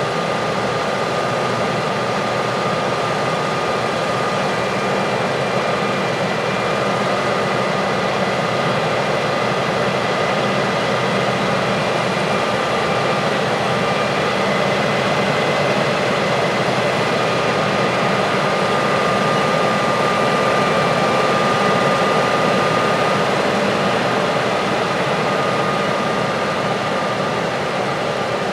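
Heavy farm machinery running steadily under load: a constant engine and machine drone with a high, even whine over it.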